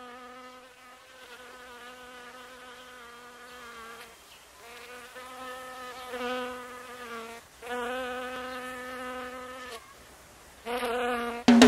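Buzzing of a flying insect in four long passes with short breaks between them, its pitch wavering slightly. A sharp hit near the end as the band comes in.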